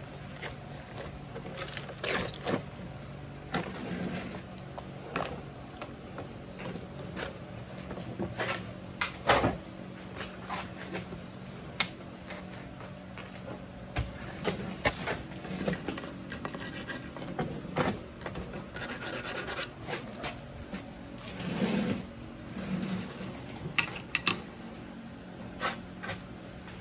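Latex rubber mold being peeled and worked off a cast statue: irregular rubbing and scraping of rubber against the rough casting, with scattered knocks as the statue is handled and turned on a plywood board. A steady low hum runs underneath.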